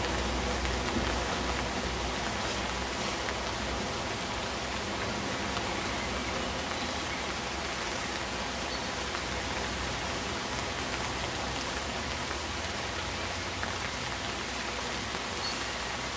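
Steady rain falling on a clear plastic dome umbrella.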